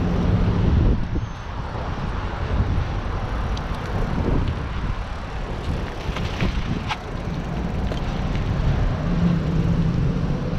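A motorbike engine running while riding, mixed with a rushing road and wind noise. A steady low engine note at the start fades into the rushing noise, and a steady engine note comes back near the end.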